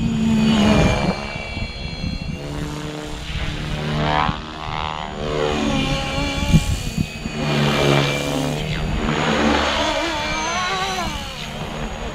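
FlyWing FW450 V2 electric RC helicopter in flight on a 3S LiPo: motor whine and rotor whir that keep rising and falling in pitch as it manoeuvres and passes by. There is a brief thump about six and a half seconds in.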